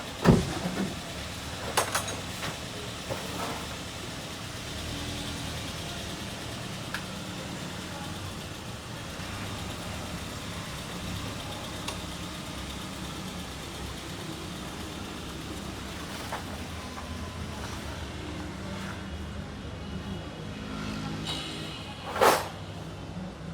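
An engine idling steadily, with a few sharp knocks, the loudest just after the start and near the end.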